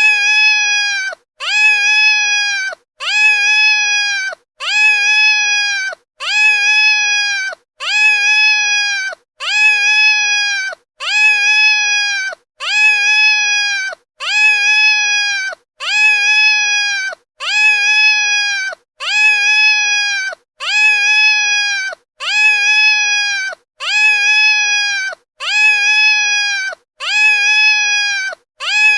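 Domestic cat giving loud, drawn-out meows over and over, one about every second and a half, each call the same: a steady, high meow that rises at the start and drops off at the end.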